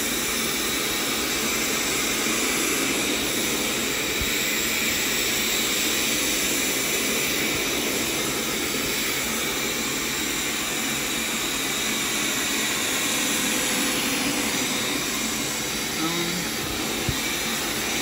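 Hoover PowerScrub XL carpet cleaner's suction motor running steadily while its upholstery hand tool works over a wet fabric couch cushion, sucking up the water.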